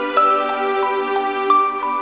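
Instrumental background music: a melody of single struck notes, about three a second, over a steady held chord.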